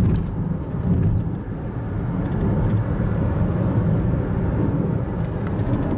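Steady low road and engine rumble of a car driving at highway speed, heard inside the cabin.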